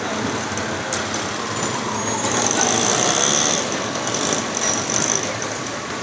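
Tram passing close by: a steady rolling rumble of wheels on rails, with a high whine in the middle and a lower tone that falls in pitch as it goes by.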